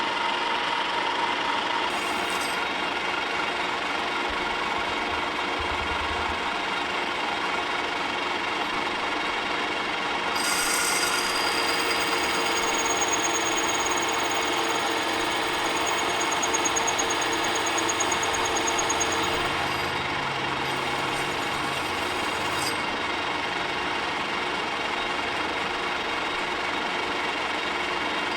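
Metal lathe running and cutting into a steel forklift rim, a steady machine noise, with an added high whine from about ten seconds in until a few seconds past the middle.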